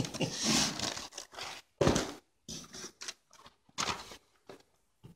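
Packaging being handled: a string of irregular rustles, scrapes and knocks from cardboard, plastic wrap and a styrofoam cooler, the loudest about two seconds in and again near four seconds.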